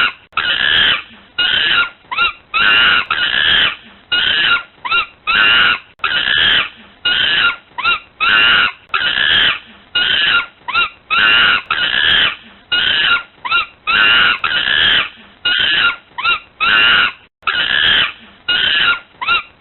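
A monkey screaming: loud, shrill calls repeated in quick succession, each a fraction of a second to about a second long, with short gaps between.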